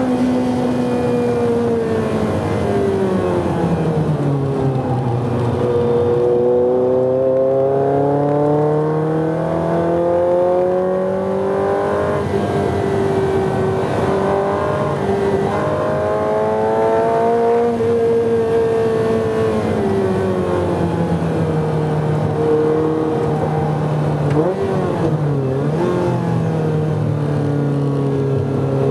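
Ferrari 348's V8 engine heard from inside the cabin on a track, its note rising and falling in pitch over several seconds at a time through gears and corners. It drops and recovers sharply about 25 seconds in.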